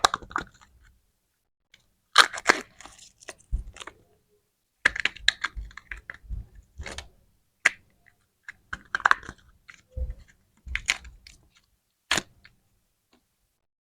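Candy packaging handled close to the microphone: short bursts of crinkling and clicking plastic wrappers, separated by pauses, with a last single crackle near the end.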